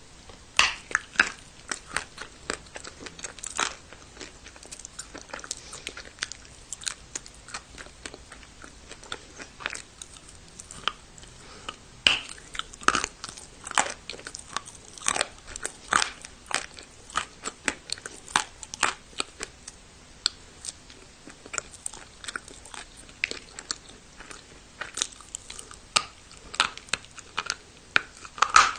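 Close-up biting and chewing of hard dry clay: a long run of crisp, irregular crunches, several a second, as the pieces crack between the teeth.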